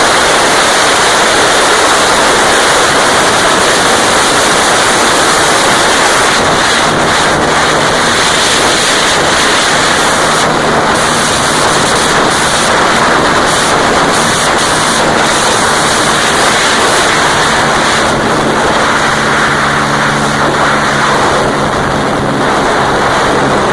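Heavy wind rushing over the microphone of a Honda Dream C100 ridden at speed, with the bike's small single-cylinder four-stroke engine running steadily beneath it through a Roncar aluminium aftermarket exhaust. The engine's note is buried at first and comes through more clearly in the last few seconds.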